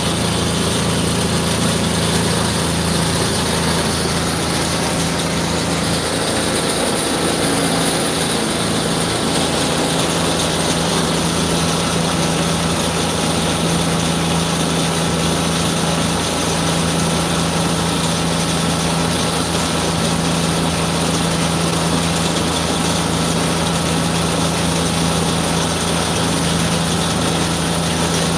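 Water tanker truck's engine running steadily at idle, a low even hum, while its large hose sprays water with a steady hiss.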